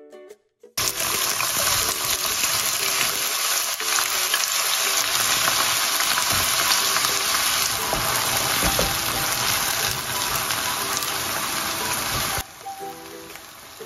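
Chopped onions sizzling loudly in hot oil in a non-stick wok as they are tipped in and stirred with a wooden spatula. The sizzle starts suddenly about a second in and drops away abruptly near the end.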